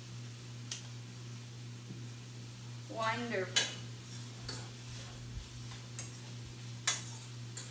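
Pasta being stirred in a frying pan on the stove, with several sharp clinks of the utensil against the pan and a faint sizzle.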